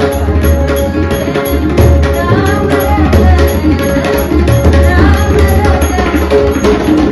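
Hindustani devotional bhajan played live: a woman singing over a droning harmonium, with tabla and pakhawaj drumming and taal cymbals striking a steady beat.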